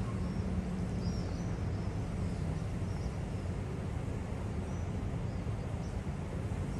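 Harbour ambience: a steady low machinery hum, with faint short bird chirps scattered over it.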